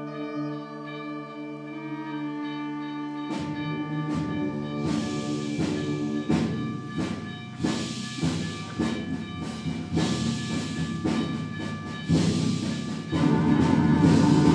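Student concert band playing: held wind and brass chords, then about three and a half seconds in, sharp percussion strikes come in and repeat over the band. The band grows louder near the end.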